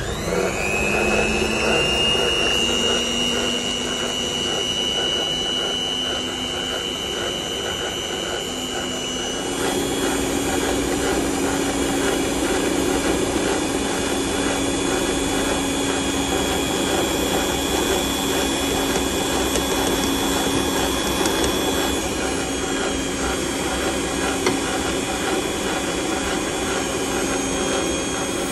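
Electric mixer whisking eggs with its twin beaters, a steady motor whir. It starts with a rising whine as the motor spins up, and its pitch shifts about ten seconds in.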